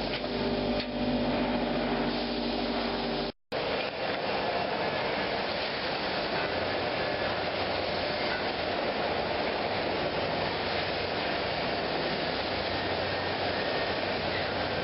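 Machinery running in a concrete paving-slab press plant. First comes a steady hum with several held tones, then a brief dropout about three seconds in, then a dense, steady mechanical noise.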